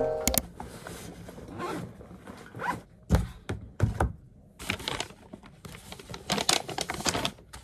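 Backpack zipper being drawn open in several short runs, with a couple of thuds and scraping as a textbook is taken out and set on the desk.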